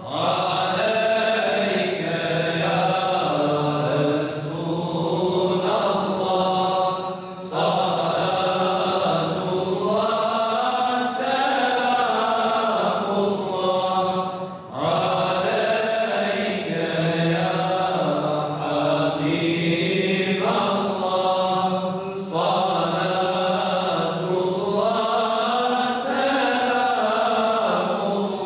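A group of men singing an unaccompanied Islamic mevlud hymn together in unison, in long melismatic phrases about seven seconds each with brief breaks for breath between them.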